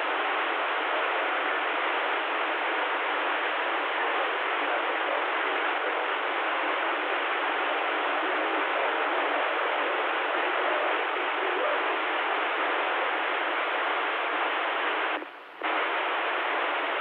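CB radio receiver hiss: a steady static rush on an empty channel, cutting out briefly near the end.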